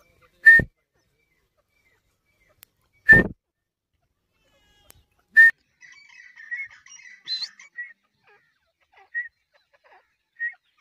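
Partridge (Irani teetar) calling: three loud, sharp single calls about two and a half seconds apart, then a run of softer chattering notes with one quick rising note.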